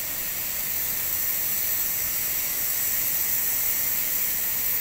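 Steady, even outdoor hiss, strongest in the high range, with no distinct events.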